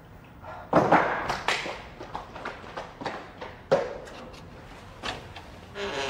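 Several loud thumps about a second in, then footsteps on a wooden floor and the click of a door latch as a door is opened.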